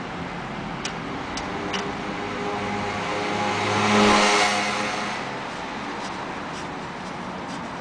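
A motor vehicle passing by, its engine growing louder to a peak about four seconds in and then fading away. A few light clicks come in the first two seconds.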